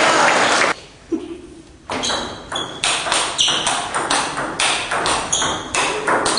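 Table tennis rally: the celluloid ball clicks off the bats and the table about three times a second, in a quick even rhythm that starts about two seconds in. Before it, a loud burst of crowd noise cuts off under a second in.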